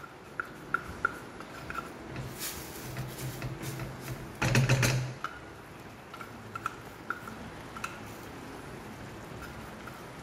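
Spoon stirring semolina into boiling water in a stainless steel frying pan: light scattered clinks and scrapes against the pan, with one louder scrape about four and a half seconds in.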